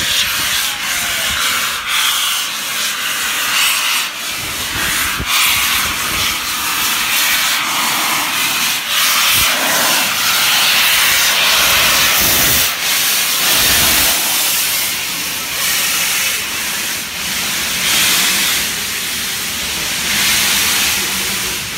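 Peppercorn A1 Pacific steam locomotive 60163 Tornado venting steam from low at its front in a loud, steady hiss.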